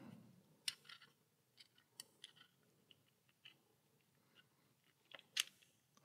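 Faint, scattered metal clicks and scrapes of a small tool prying at the retaining ring on the face of a euro lock cylinder, with a few sharper clicks about five seconds in.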